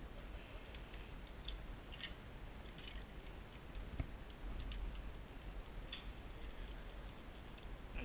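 Faint, scattered light clicks and ticks, about half a dozen at irregular intervals, over a low steady rumble of wind on the microphone.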